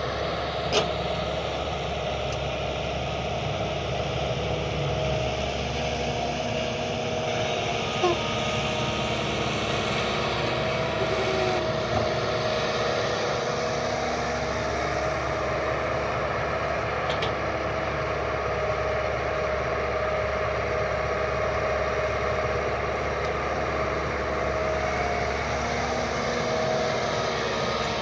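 Diesel engine of a Kobelco SK120 Mark 3 excavator running steadily, with a few short sharp knocks from the work.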